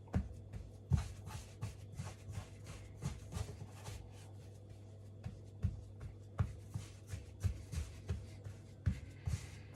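Hands kneading scone dough on a worktop: irregular soft thuds and rubbing, a few each second, over a steady low hum.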